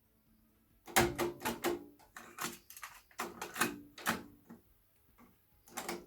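A sparse passage of electronic keyboard music: a run of short, sharp percussive hits with a faint pitched note, starting about a second in after a moment of silence, with two more hits near the end.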